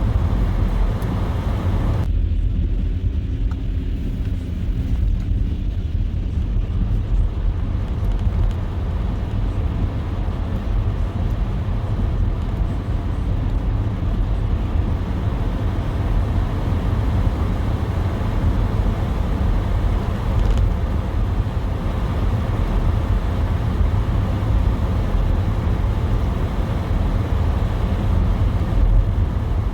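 Car driving on a snow-covered road: a steady low rumble of tyres and engine.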